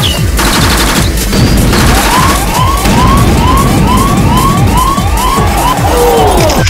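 Electronic background music with a fast, steady beat. From about two seconds in, a siren-like wail sweeps up and down about twice a second, ending in a longer falling glide.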